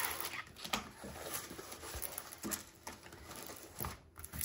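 Green plastic straightener (putty knife) scraping over a diamond painting canvas to flatten it, then the canvas being handled, giving an uneven run of soft rubs and a few light taps.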